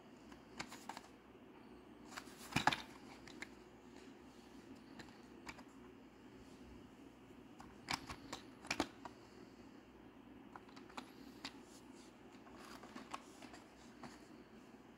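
Hot Wheels blister cards, plastic bubbles on card backing, handled in the hand: scattered crinkles and clicks, loudest about two and a half seconds in and again around eight to nine seconds, over a faint steady hum.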